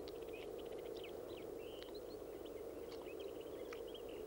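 Birds chirping, with many short, high calls scattered throughout, over a steady low rushing background.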